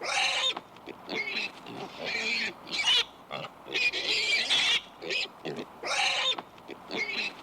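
Pig grunting and squealing in a run of short, repeated calls about once a second, with softer snuffling between them.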